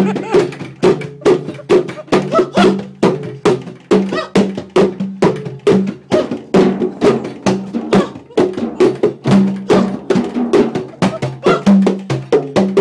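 Fast drumming: sharp strokes several times a second in a steady rhythm, with a low tuned drum tone recurring among them.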